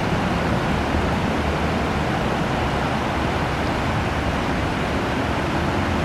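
Shallow river rapids rushing over rocks: a steady, even roar of moving water.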